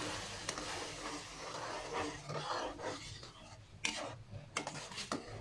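Hot sugar syrup sizzling and bubbling in semolina roasted in oil in a metal kadai, the hiss fading over the first couple of seconds. A metal spoon then stirs and scrapes the pan, with a few sharp clicks near the end.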